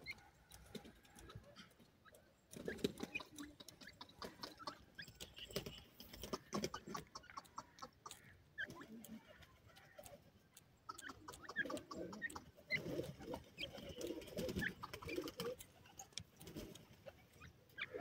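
Francolins foraging on dry sandy soil: soft low clucks mixed with many small clicks and scratches of pecking and scratching in the dirt, busiest in the latter half.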